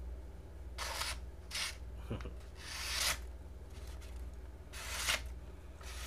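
Steel blade of a Spyderco Sub-Hilt Vallotton copy folding knife slicing through a sheet of printer paper in four strokes, the third the longest, as a sharpness test. The reviewer judges this blade could be sharper.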